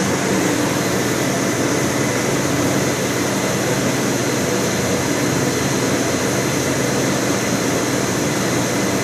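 Commercial hood-type dishwasher running its wash cycle: a steady rush of spraying water over a constant motor hum.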